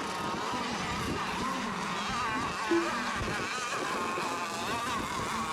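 Several radio-controlled racing boats' small engines buzzing together as the boats circle before the start, their pitches wavering up and down.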